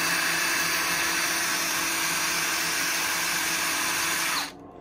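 Cordless drill running a 3 mm metal-cutting bit through the steel back of an electrical back box to make a pilot hole. It runs steadily at speed, then winds down and stops near the end.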